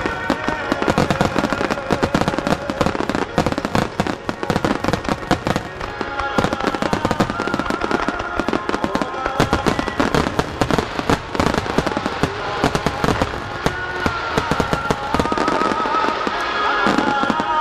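Starmine fireworks barrage: a dense, unbroken run of shell bursts banging and crackling close together, over a song with a sung melody played with the show. It grows louder near the end.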